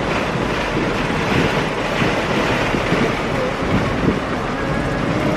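Steady rushing road and wind noise of a car driving, heard inside the cabin, with a low rumble underneath.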